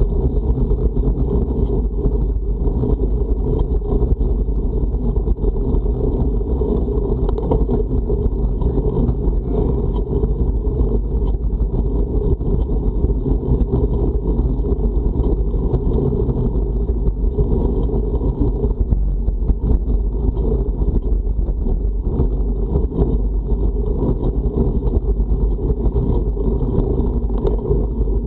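Steady, loud wind noise buffeting the microphone of a camera on a road bike riding into a strong headwind, heard as a deep, unbroken rumble.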